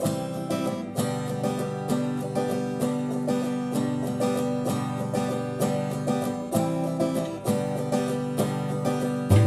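Instrumental intro of a recorded song: plucked string instruments picking quick, even notes over held low notes, with the music getting louder right at the end.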